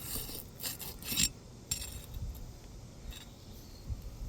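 Scraping and rubbing on asphalt roof shingles as a damaged shingle is worked loose, in a handful of short separate scrapes.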